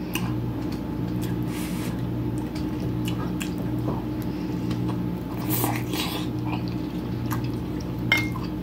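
Wet chewing and mouth clicks from eating garlic smoked sausage coated in Cajun butter sauce, with a bite taken partway through, over a steady low hum.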